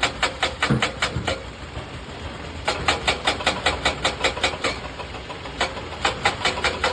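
Machine running with sharp rhythmic knocks about five a second over an engine tone. The knocking stops twice for about a second and then resumes.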